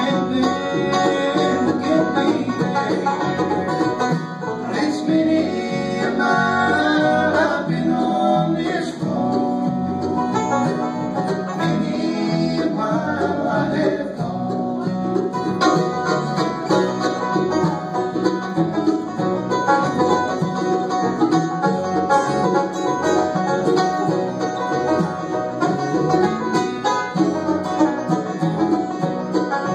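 Live bluegrass band playing a steady, driving tune: five-string banjo rolls over acoustic guitar and mandolin, with bass underneath.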